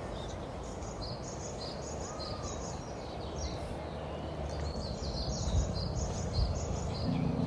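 Birds chirping in quick clusters of short notes, over a steady low background rumble.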